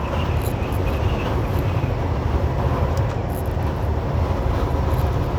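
Semi truck driving at highway speed, heard from inside the cab: a steady low engine drone with road and wind noise.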